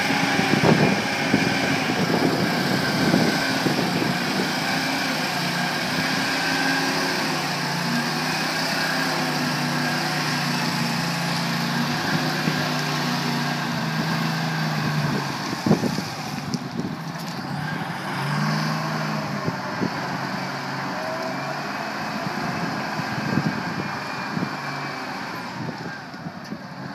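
Terex 90C wheel loader's diesel engine running as the loader drives and works a dirt pile, its note rising and falling with the throttle. A sharp knock comes about sixteen seconds in, after which the engine settles a little quieter.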